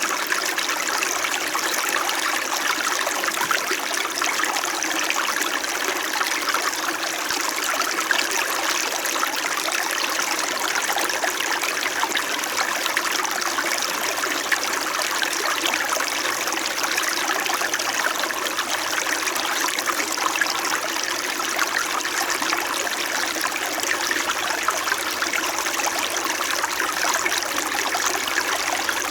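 Small stream babbling steadily, an even, continuous flow of running water.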